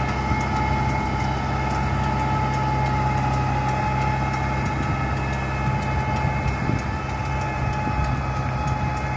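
Tractor diesel engine running steadily under load as it drives a rotavator through dry soil, with a steady whine over its low hum and faint light ticks.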